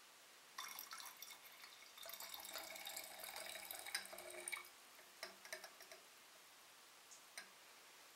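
Dilute acetic acid poured from a glass beaker into a glass round-bottom flask, splashing and trickling for about four seconds, followed by a few faint clicks.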